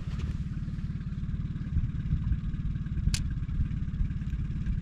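Boat outboard motor running steadily at low speed, a fast even low pulsing, with one sharp click about three seconds in.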